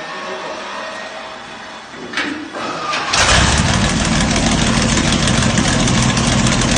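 A motor starts about three seconds in, after a quieter whirring hum, and then runs loud and steady.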